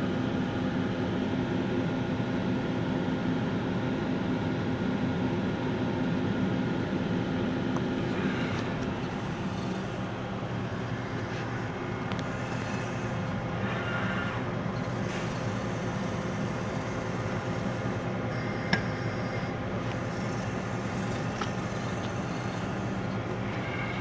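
A CEM Discover-S microwave digestion system with its Explorer 48 autosampler running, giving a steady hum with several steady tones. Short whirs from the autosampler arm's motors come and go between about 8 and 15 seconds in as it moves a sample vessel into the cavity, and there is a single sharp click near 19 seconds.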